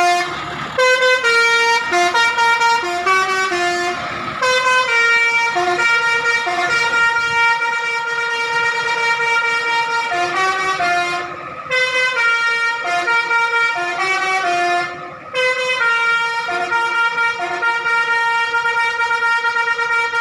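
Bus telolet horn of the Basuri type playing a tune. It steps through short changing notes, then holds long multi-note chords, cutting out briefly twice.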